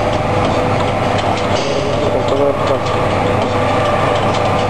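Tea-bag packing machine running, a steady mechanical clatter with repeated clicks from its moving parts.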